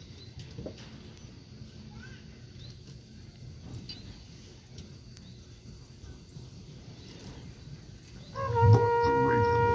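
Faint open-air background murmur. About eight seconds in, a marching band's brass section comes in with a loud, sustained chord.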